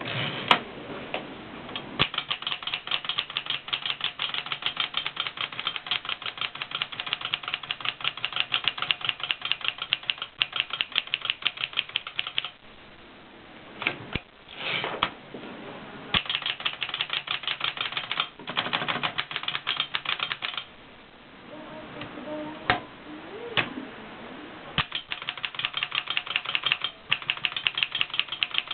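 1920s Erika typewriter being typed on: long runs of rapid, even keystrokes with a few short breaks between runs.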